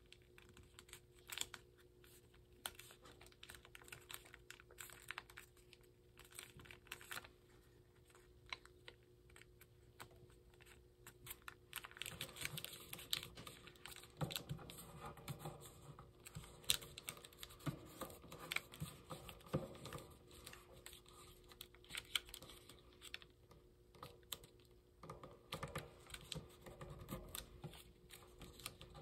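Origami paper being folded and creased by hand: light clicks and crinkles of the paper under the fingers, turning to denser rustling and rubbing from about twelve seconds in as the paper is pressed flat.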